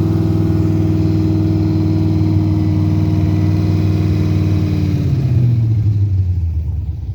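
Carbureted 5.3 LS V8 running at a fast, steady idle, then its revs sag and stumble about five seconds in as it starts to die. The owner puts the fast idle and the stalling down to a carburetor, timing or vacuum leak problem.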